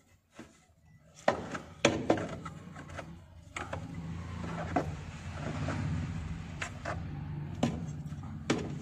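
Hands pulling an old petrol filter and its rubber fuel hose loose in a car's engine bay: several sharp clicks and knocks of metal and plastic, over a steady low hum and hiss that start about a second in.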